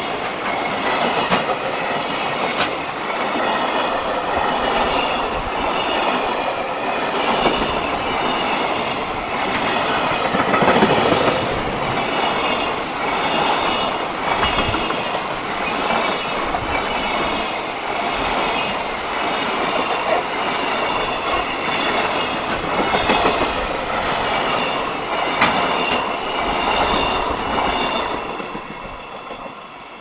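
Freight train of container flat wagons rolling past close by, the wheels clattering steadily over the rail joints. The sound drops away in the last couple of seconds as the end of the train goes by.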